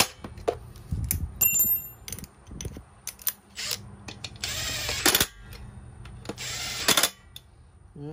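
Cordless electric screwdriver driving in the screws of the side cover on a 43cc brush-cutter engine. It runs in several short whirring bursts with small clicks between them.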